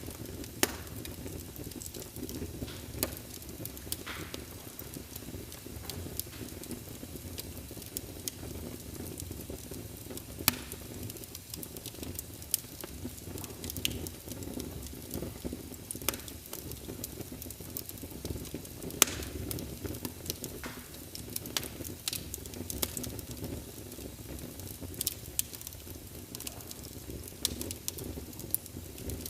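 Wood fire burning in a fireplace: a steady low hiss and rumble of flames with sharp pops and crackles at irregular moments, a few louder snaps among them.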